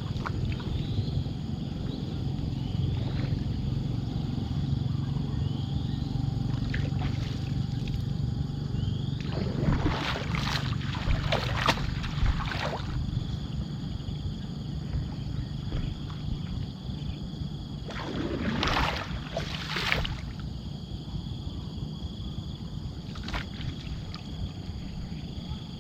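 Water splashing and sloshing beside a small boat in two stretches, about ten and nineteen seconds in, over a steady low hum. Short rising chirps early on and a thin steady high insect tone later sound in the background.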